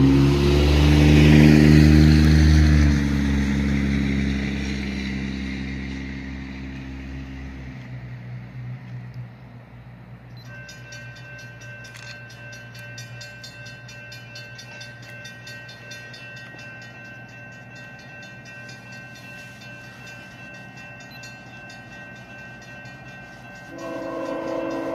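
CSX freight train's diesel locomotive horn sounding loud over a deep rumble, then fading away over the next several seconds. After that come quieter steady high tones with fast, even ticking. A horn chord starts again near the end.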